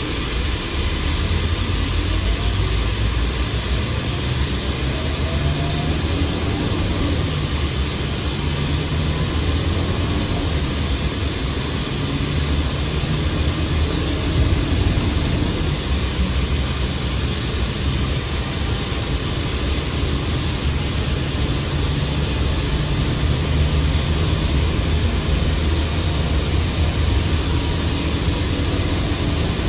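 Mercedes-Benz OC500LE CNG bus with a ZF automatic gearbox under way: a steady low engine drone under a loud, even hiss of road and air noise, with faint rising whines now and then.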